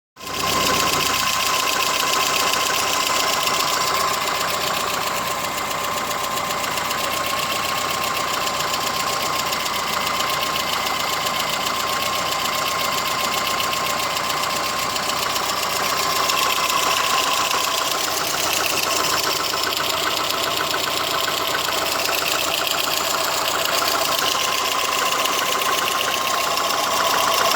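VAZ-21083 eight-valve four-cylinder petrol engine running steadily with a fast, even valve tapping: a knocking valve.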